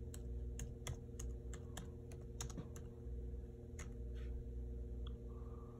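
Typing on a laptop keyboard: irregular key clicks, quick through the first few seconds and then sparser. A steady low hum runs underneath.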